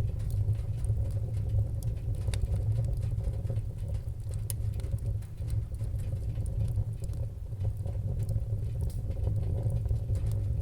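Fire crackling: scattered sharp pops and snaps over a steady low rumble of burning flames.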